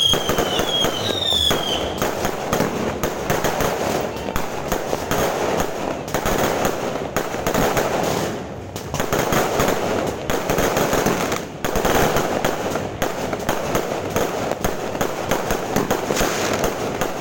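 New Year fireworks going off in a dense, continuous barrage of bangs and crackling, with a few falling whistles in the first two seconds and a brief lull about halfway through.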